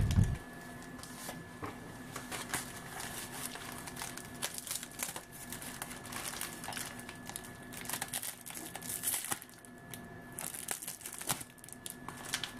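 White foam packing wrap and clear plastic tape crinkling in an irregular run of small crackles as a parcel is unwrapped by hand.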